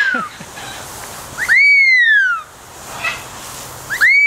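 Parrot giving loud, repeated whistles. Each is a quick rise and then a slow falling glide lasting under a second, repeated about every two seconds: one ends just at the start, a full one comes about a second and a half in, and another begins near the end.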